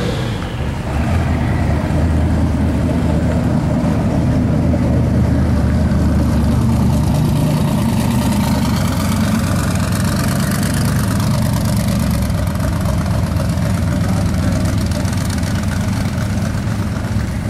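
Plymouth Duster 340's V8 idling steadily, with a deep, even exhaust note.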